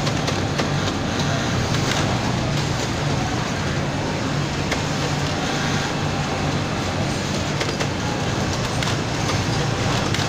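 Industrial single-needle sewing machines running on a garment factory floor: a steady mechanical whir over a low hum, with a few faint clicks.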